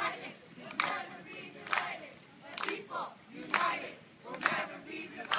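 A group of people chanting together in a steady rhythm, a loud shout about every second, each starting with a sharp attack.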